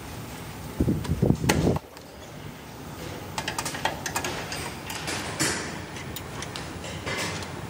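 Motorcycle body parts being fitted by hand: a cluster of dull knocks about a second in as a plastic tail cover is pressed onto the frame, then a run of light clicks and metallic taps as a chrome grab rail is handled against the frame.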